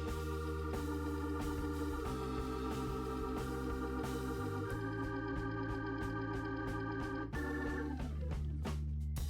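Background music: sustained organ chords changing every couple of seconds.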